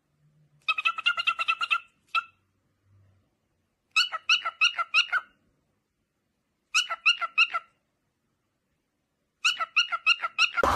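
An animal calling in five short bursts of rapid, repeated high chirping notes, with pauses between the bursts.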